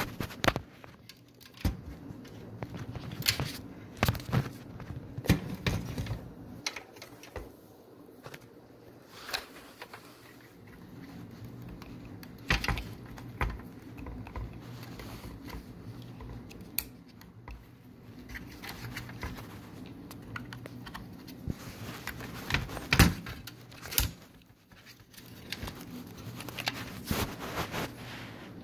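Irregular clicks and knocks of plastic and metal parts being handled and connectors being pushed back in inside an opened DVR box, some in quick clusters, over a faint steady hum.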